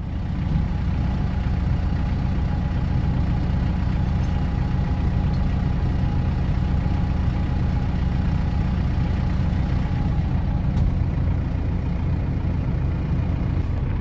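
Tractor's diesel engine running steadily close to the microphone, getting louder about half a second in and then holding an even drone.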